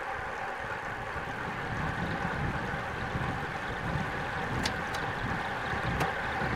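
Wind rushing over the microphone and road noise from a road bike rolling on asphalt, a steady rush, with three short sharp clicks in the last two seconds.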